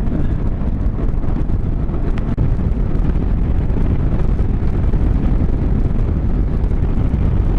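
Small 200 cc motorcycle engine running hard at road speed, close to full throttle, under steady wind buffeting on the microphone.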